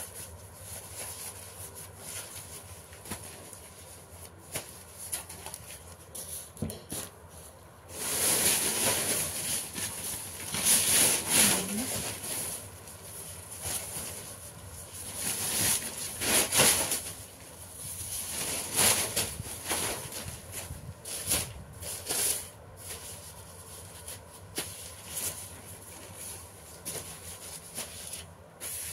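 Sheets of paper rustling and crinkling as they are handled and folded, in irregular bursts, loudest about a third of the way in.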